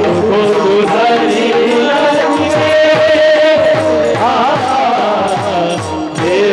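Devotional bhajan singing of a Marathi abhang: a voice holds a long note that wavers near the end, over steady hand-drum strokes and instrumental accompaniment.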